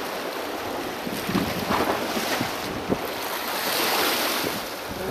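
Small harbour waves washing and sloshing against the rocks, with wind buffeting the microphone; the rush of water swells about four seconds in.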